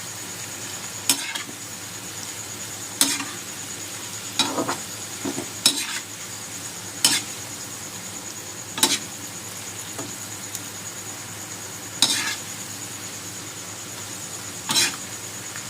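French fries sizzling in hot oil, with a metal spoon knocking against the pan every second or two as they are stirred.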